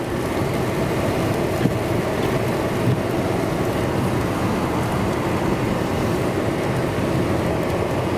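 Steady rushing noise of a vehicle moving along a snowy road.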